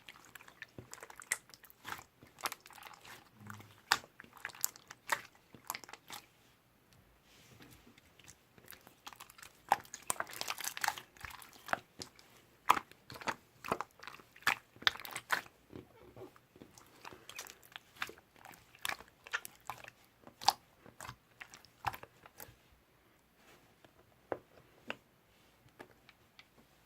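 Close-up crunching and chewing: an irregular run of sharp crunches, thinning out near the end.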